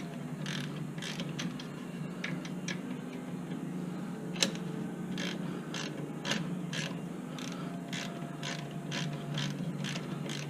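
Ratchet wrench clicking in repeated strokes, about two clicks a second, as a brake caliper bolt is turned.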